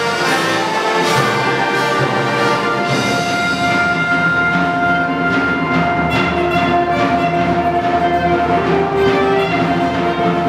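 Youth concert band playing with the brass to the fore; from about three seconds in the band moves from busier playing into long held chords.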